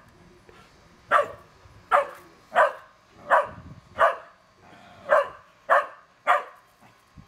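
Small dog barking: eight short, sharp barks, about one every two-thirds of a second, with a slightly longer pause about two-thirds of the way through.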